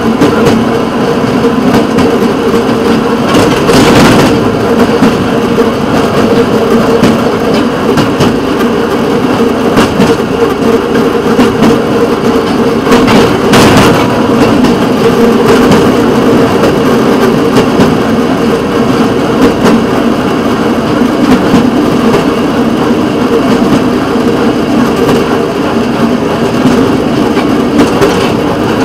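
Small engine of a railroad motorcar (speeder) running steadily as the car rolls along the track, heard from on board. Two louder clacks from the wheels crossing track joints or switch work come about four seconds and thirteen seconds in.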